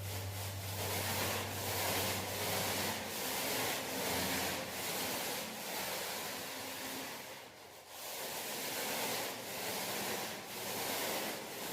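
Paint roller rolling wet paint onto a wall, a rubbing hiss that swells and fades with each stroke, about once a second.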